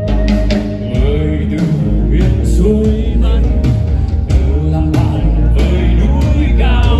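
Rock band playing live: drums, a heavy bass and guitar, with a melody line that bends and wavers over them.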